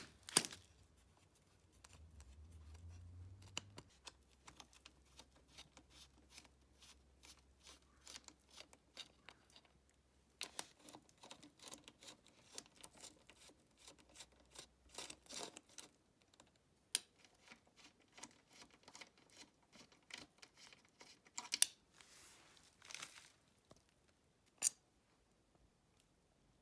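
Scattered small clicks and ticks of hand tools and bolts being worked on a Honda CR125's engine side cover, with crinkling of plastic sheeting. A few sharper metal clicks stand out, the loudest about 22 seconds in.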